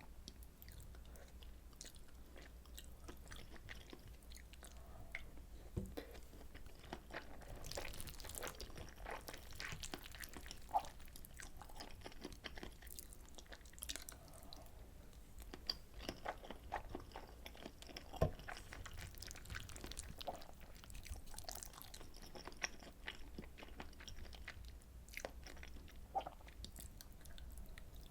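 Close-miked chewing of soy sauce butter egg rice: soft, wet mouth clicks and smacking that go on steadily, with a few sharper clicks standing out.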